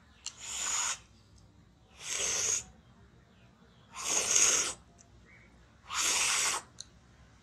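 Four loud, breathy mouth noises about two seconds apart, each lasting just over half a second, from a man with a small milk carton held to his lips.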